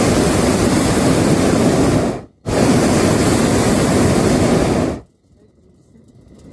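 Hot-air balloon's propane burner firing in two blasts of about two and a half seconds each, with a short break between, then shutting off about five seconds in. It is heating the envelope on the final approach to landing.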